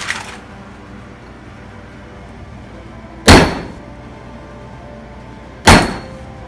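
Two loud metal clangs about two and a half seconds apart, each ringing briefly, with a lighter knock just at the start.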